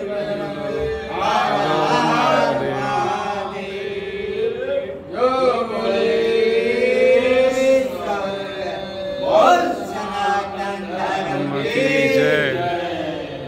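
Devotional chanting and singing of a Hindu temple aarti, with long held notes that bend in pitch.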